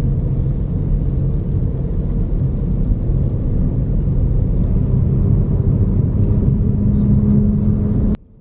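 A car driving on a paved road, heard from inside the cabin: a steady low rumble of tyres and engine that cuts off suddenly near the end.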